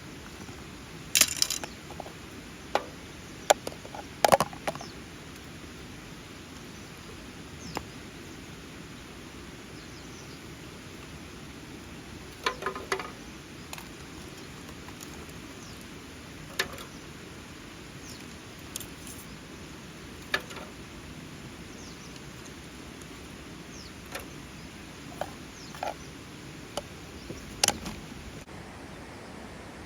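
Wood campfire crackling: irregular sharp pops and snaps, a few in quick clusters, over a steady hiss.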